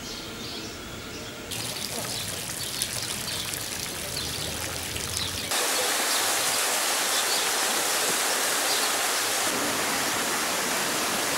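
Stream and waterfall water rushing over rocks, a steady even rush that steps up louder about five and a half seconds in.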